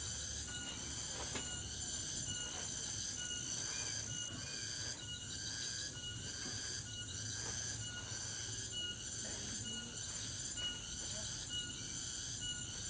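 Rhythmic high-pitched chirping, pulsing evenly a little under twice a second, over a low steady hum.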